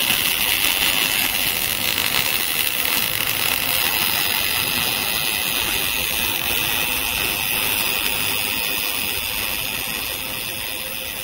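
Welding arc of an automatic bore-welding torch laying build-up weld around the inside of a bore: a steady hiss, easing slightly toward the end.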